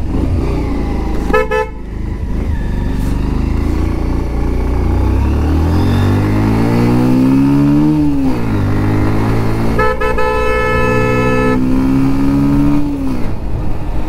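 A motorcycle engine on the road rises steadily in pitch as it pulls. It drops suddenly about eight seconds in, then climbs again. A vehicle horn toots briefly about a second and a half in and sounds for over a second at about ten seconds in.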